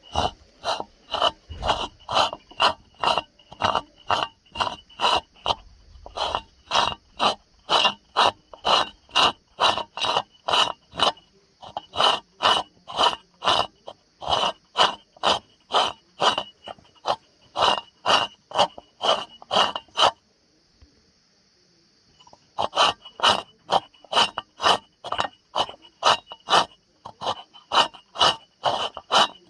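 Old coffee mill grinding, a rasping stroke repeating about twice a second. The strokes stop for about two seconds near two-thirds of the way through, then start again.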